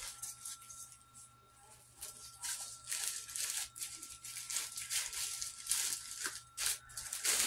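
A bag rustling and crinkling in irregular bursts as things are packed into it by hand, starting about two seconds in.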